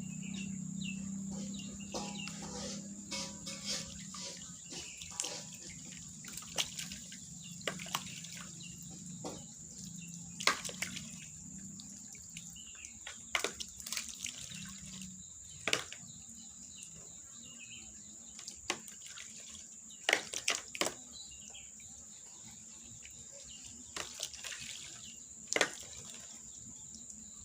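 Scattered splashes and drips of water at irregular intervals, over a steady high-pitched insect drone. A low hum fades out over the first half.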